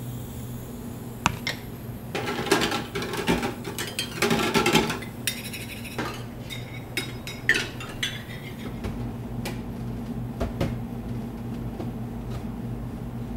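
Metal spatulas scraping and tapping on a chilled cold-stone plate as ice cream is mixed and chopped. The quick scrapes and clinks are densest in the first half, over a steady low hum.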